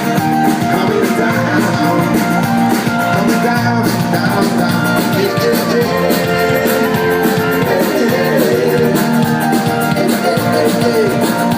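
Live band music with guitar, playing at a steady, loud level.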